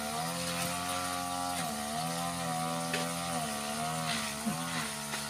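A small engine running steadily in the background, its pitch wavering slightly up and down every second or so.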